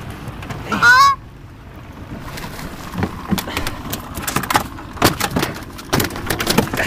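Canada goose giving one loud honk about a second in, then a run of sharp knocks and scuffles as the goose and a dog tussle in a small boat.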